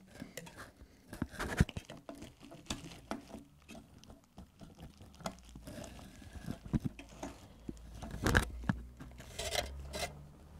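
A RAM stick being slotted into a motherboard memory slot: irregular plastic clicks and handling noise, with louder clicks about a second and a half in and about eight seconds in.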